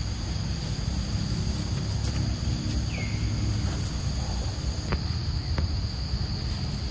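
Outdoor insect drone, a steady high hum, over a constant low rumble. A brief high falling chirp comes about three seconds in, with a few faint clicks.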